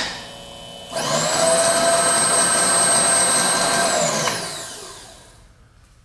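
Newly installed X-axis power feed on a Bridgeport-type milling machine driving the table. After a click, the motor runs quietly, then about a second in it jumps to a loud steady high whine, as in rapid traverse, for about three seconds. It then winds down with a falling pitch and stops.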